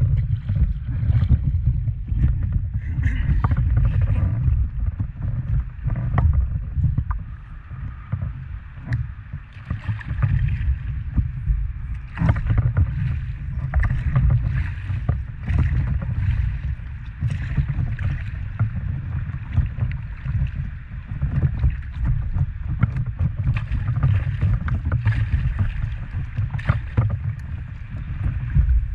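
Water lapping and splashing against the nose of a stand-up paddleboard as it is paddled along, with irregular sharp slaps over a constant low rumble.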